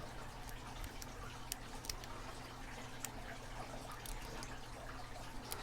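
Faint, scattered metallic clicks and ticks of a snake rake and tension wrench working the pins in the keyway of an Abus 8345 padlock, over a low steady hum.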